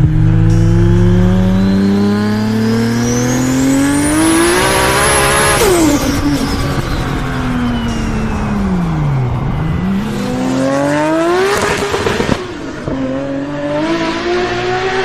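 Toyota Supra's big-turbo 2JZ straight-six revving hard, its pitch climbing for about five seconds with a rising turbo whistle. Then it comes off the throttle, and the whistle and engine pitch sink. The engine picks up again with a short burst of sharp crackles about eleven seconds in, and the revs climb once more.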